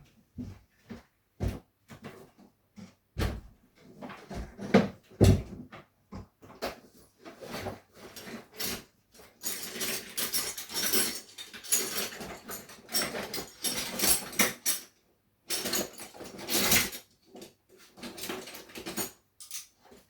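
Scattered knocks and bumps, then a long stretch of clattering and clinking as tools are rummaged through in a toolbox to find a pair of long nose pliers.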